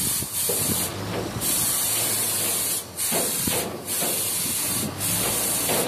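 Paint spray gun hissing as it sprays coating onto steel bridge girders, the hiss breaking off briefly about five times, with a steady low hum underneath.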